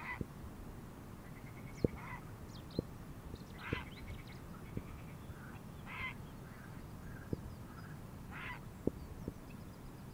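Waterbirds calling: about five short, harsh calls spaced a couple of seconds apart, with faint high chirps of small birds and several sharp low knocks between them.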